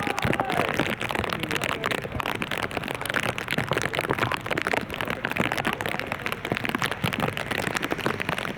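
Heavy rain falling, a dense, steady patter of countless drops hitting close to the microphone.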